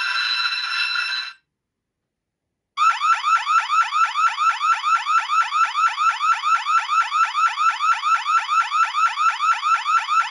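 The Hornby TTS sound wagon's on-board speaker playing its modern burglar alarm effect: an electronic whoop that rises in pitch and drops back about four times a second, starting about three seconds in after a short silence. Before that gap, an earlier steady ringing effect cuts off about a second in.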